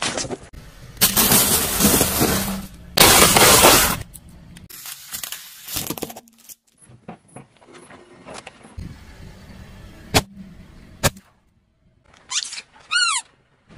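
A car tyre crushing objects on asphalt one after another: a plastic bottle of blue liquid bursts under the tyre and sprays, loud for about three seconds. Later come two sharp cracks and, near the end, a short squeak.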